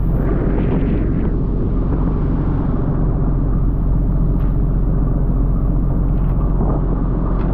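Tuna fishing boat's engine running with a steady low drone, under the hiss and splash of water spraying and churning along the hull, with a brief louder splash near the start.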